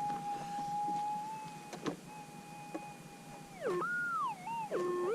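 Minelab GPX 6000 metal detector's steady threshold hum, which swings sharply down and back up in pitch over the last second and a half as the detector responds. A couple of faint knocks come in the middle.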